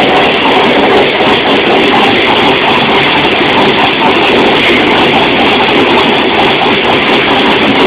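Engine of a 1954 Chevrolet truck running steadily, loud and without a change in speed, its exhaust passing through a pair of mufflers on the bare chassis.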